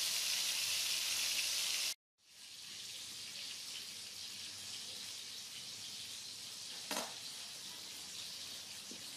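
Two whole fish frying in hot oil in a pan, with a steady loud sizzle that cuts off about two seconds in. Then a quieter steady hiss follows, with one sharp click about seven seconds in.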